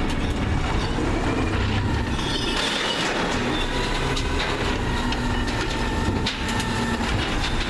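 The hydraulic arm of a McNeilus ZR automated side-loader garbage truck lifts a wheeled cart and tips it over the hopper. A steady hydraulic whine and scattered clanks and rattles from the arm and cart sit over the truck's running CNG engine.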